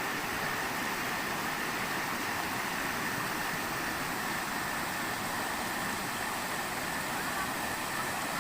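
Steady rushing of a flowing river, an even unbroken hiss, with a thin steady high tone running over it.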